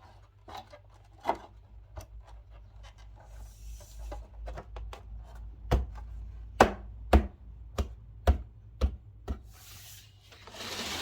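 Irregular clicks, taps and knocks of a small speaker enclosure being fitted back together by hand. There are a handful of louder thumps in the middle and a short rustle near the end.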